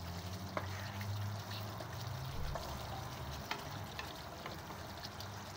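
Chicken curry gravy faintly bubbling in a frying pan as a wooden spatula stirs it, with a few light taps of the spatula against the pan about a second apart.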